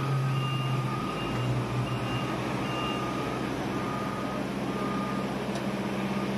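Vehicle warning beepers sounding over and over in short beeps at two pitches; the higher one stops about three seconds in while the lower one keeps going, over the steady drone of a running engine.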